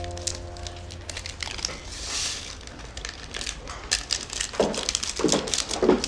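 Crinkling, rustling handling noise with scattered small clicks, as soft piano music fades out in the first second.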